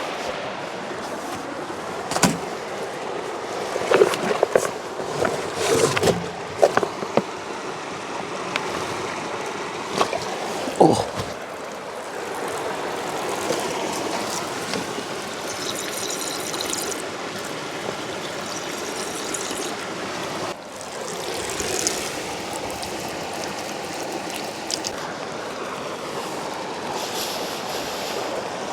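Mountain river rushing steadily, with a few sharp clicks and knocks in the first ten seconds or so.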